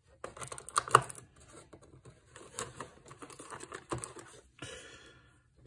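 Plastic miniatures being picked out of and knocked against a plastic box-insert tray: irregular clicking and rattling, the sharpest click about a second in, with a short rustle near the end.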